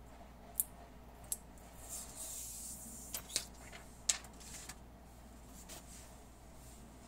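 A smartphone and its plastic screen film handled by hand: several sharp clicks and taps, with a brief crinkly plastic rustle about two seconds in.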